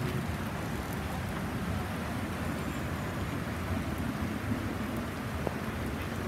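Heavy rain pouring onto wet asphalt pavement: a steady, dense hiss of drops splashing on the flooded surface.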